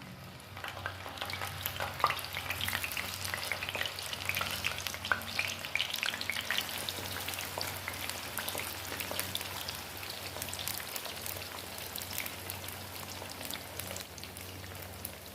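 Cut green eggplant pieces frying in hot oil in a wok, a dense, steady crackling sizzle.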